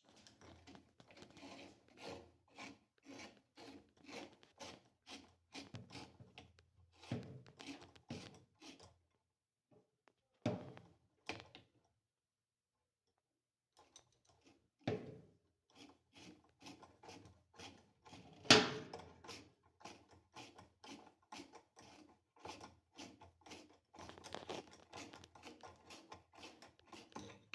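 Parts of a Kenmore washer's agitator being refitted by hand: a run of short scraping clicks a few times a second, stopping for a few seconds partway through, with one louder knock in the second half.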